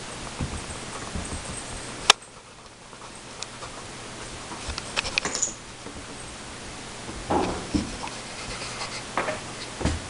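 A puppy scrambling about at play: scattered light taps and scuffles, with one sharp click about two seconds in.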